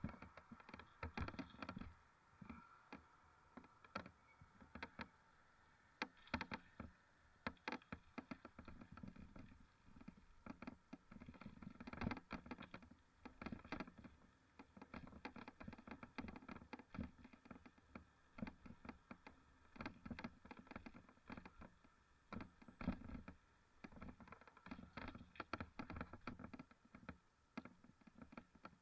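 Faint, irregular clicks and knocks, often several a second, over a low murmur.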